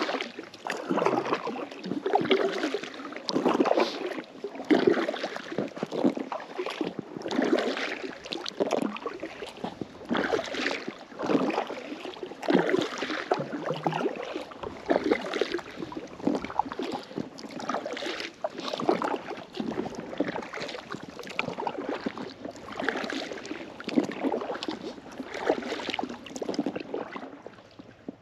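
Kayak paddle strokes splashing in lake water beside an inflatable kayak, in a regular run of strokes, each about a second apart. The paddling stops near the end.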